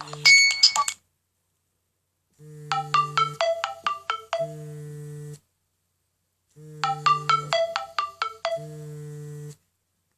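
Nokia N97 Mini ringtone playing: a quick melody of short bright notes, repeated twice with a pause between. Under each repeat the phone's vibration motor buzzes steadily for about three seconds.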